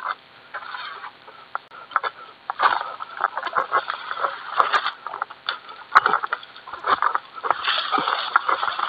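Egrek, a long-poled harvesting sickle, hooking and sawing at the fibrous frond and bunch stalks of an oil palm: an irregular run of scraping, crunching and sharp cracks, with a louder crack about six seconds in.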